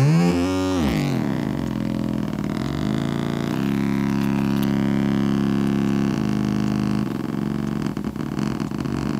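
Audio feedback looping through a mixer and a Boss DD-6 digital delay pedal: a loud, many-toned howl that glides up and then down in pitch in the first second, settles into a steady low drone from about four to seven seconds in, and then turns rougher and wavering near the end.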